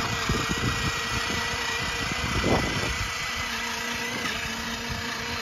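Battery-powered toy ride-on motorcycle's small electric motor whining steadily as it drives along, over low rolling noise from its plastic wheels on concrete; the whine shifts lower about three and a half seconds in and its higher tone stops a little after four seconds. The owner says it doesn't sound good and puts it down to a battery that wasn't charged enough.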